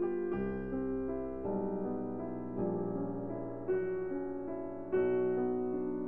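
Background piano music playing slow chords, a new chord struck about once a second.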